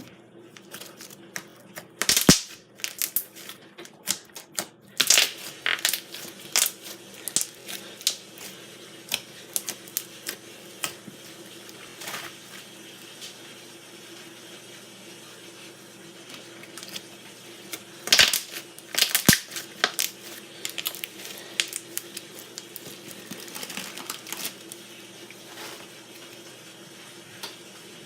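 Slime being squeezed and stretched by hand, giving off irregular sharp pops and clicks as air pockets burst, coming in quick flurries and then thinning out.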